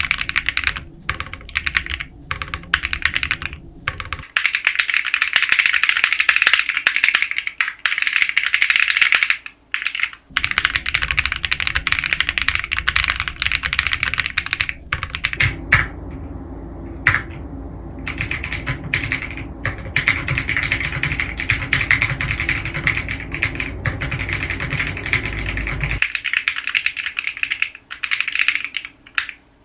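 Continuous fast typing on a Matrix 6XV 3.0 Corsa custom mechanical keyboard with Bsun RAW linear switches, left unlubricated, under PBT keycaps: a dense, even patter of key strikes with a brief lull a little past halfway.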